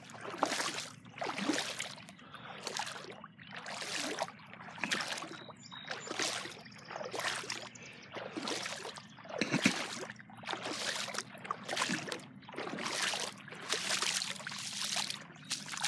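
Legs wading through floodwater, a sloshing splash with each stride, about one and a half strides a second.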